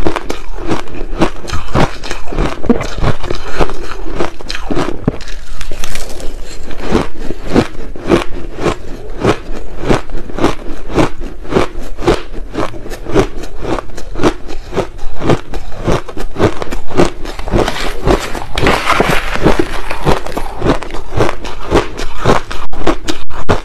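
Close-miked chewing of a mouthful of crushed ice: a fast, continuous run of crisp crunches, about three a second.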